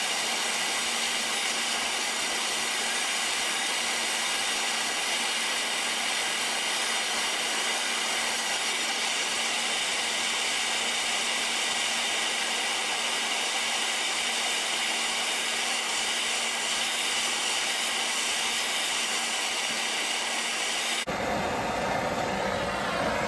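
Handheld gas torch burning with a steady hiss as its flame heats a seized wheel bearing's inner race on the front spindle to free it. The hiss changes abruptly near the end.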